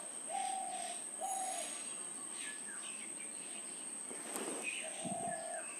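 A dove cooing in phrases of three short low notes, about one note a second: one phrase at the start and another near the end. A short knock sounds about four seconds in.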